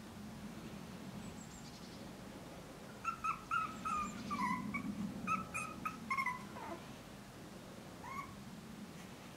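Five-week-old Bolonka Zwetna puppy whimpering and yipping: a quick run of short high-pitched calls from about three seconds in, a few dropping in pitch, then one more brief call near the end.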